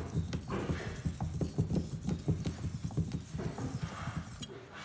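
Steel hand-plane blade rubbed flat on an oil stone in quick, rhythmic back-and-forth strokes, taking the burr off its back face after the bevel has been honed. The strokes stop shortly before the end.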